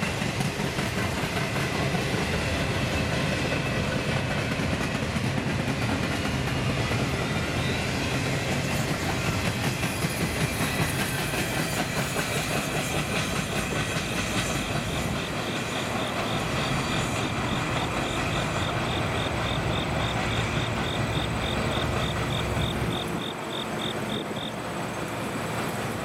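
Intermodal container well cars rolling past, their steel wheels clicking over the rail joints under a steady rush of rolling noise. The sound drops off near the end as the tail of the train draws away.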